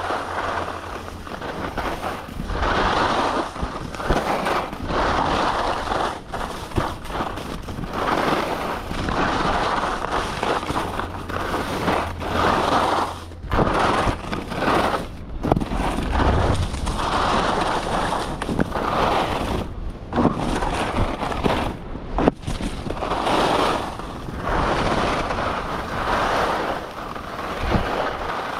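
Skis scraping and carving over hard-packed groomed snow, a hiss that swells with each turn about every two seconds, with occasional sharp clacks. Wind rumbles on the microphone underneath.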